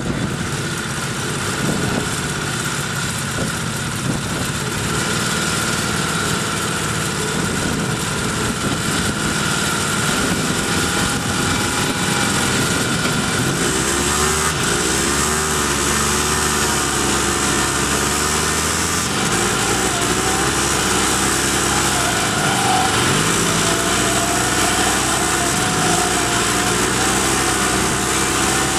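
Small engines of a 1970s Sears riding mower and a Polaris 250 ATV running together, hitched for a pulling contest. About halfway through the engines rev up and their pitch wavers up and down as they pull against each other.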